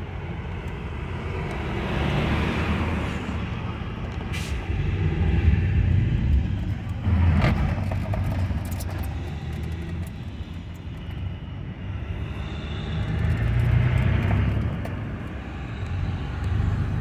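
Inside a car while driving: steady engine and tyre rumble with wind noise through a partly open side window, swelling and easing a few times, with an occasional short knock.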